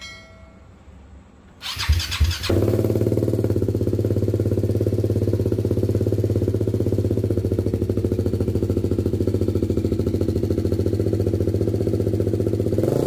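BMW G310's single-cylinder engine, breathing through an aftermarket carbon-fibre slip-on silencer, starting up a little under two seconds in and then idling steadily.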